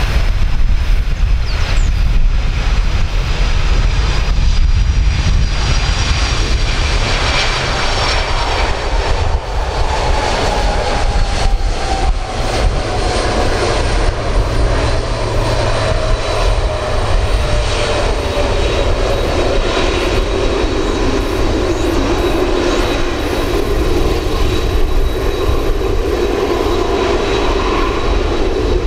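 Boeing 767-300 jet airliner's engines, a steady rumble with a whine that slowly falls in pitch as the aircraft goes by on landing.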